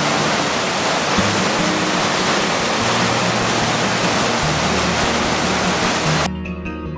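Rushing white water of a rocky cascade, a steady dense rush, over soft background music. Near the end the water sound cuts off suddenly, leaving plucked-string music.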